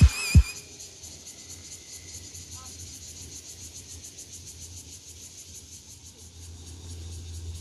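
Insect chorus in the vegetation: a high shrill drone pulsing rapidly and evenly, with a low rumble underneath that swells a little near the end. A music track ends with a last drum hit just under a second in.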